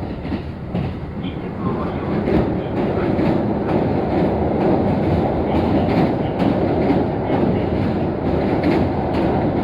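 Kintetsu electric train running on the rails, its wheels clicking over rail joints, growing louder about two seconds in.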